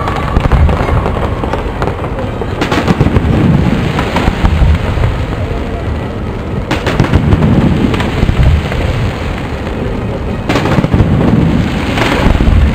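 Fireworks display: a continuous low rumble of shell bursts, with four sharp bangs spread through it.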